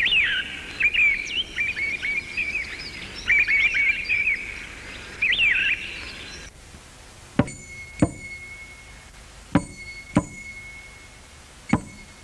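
Birds chirping with quick rising and falling calls. After about six seconds the birds stop and a series of about five sharp clinking strikes follows, each with a short ringing tone.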